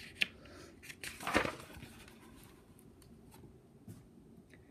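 A page of a picture book being turned: a short papery rustle about a second in, with a light click just before it.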